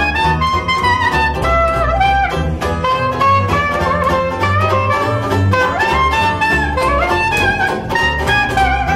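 Trad jazz trio playing an instrumental passage: a soprano saxophone plays a solo melody over a strummed banjo and a plucked double bass keeping a steady beat.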